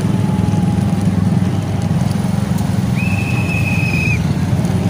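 Motorcycle engine running at low speed in slow traffic, a steady low rumble. About three seconds in, a whistle sounds once, one steady high note held for about a second.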